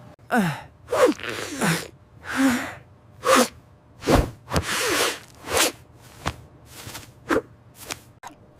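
A cartoon character's voice working up to a sneeze: about a dozen short, sharp gasping breaths, several sliding down in pitch.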